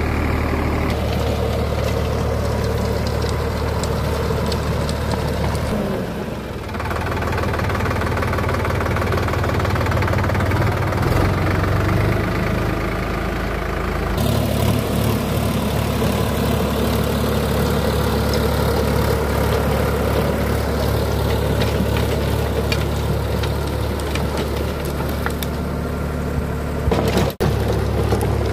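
Sonalika DI 47 RX tractor's diesel engine running steadily under load while driving a 6-foot rotavator through dry, cloddy soil. The engine note dips and drops in pitch briefly about six seconds in, then picks up again.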